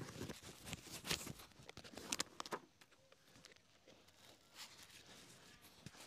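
Shoelace pulled out through the eyelets of a leather boot: a few faint rasps and ticks over the first two and a half seconds, then quiet handling of the shoe brushes.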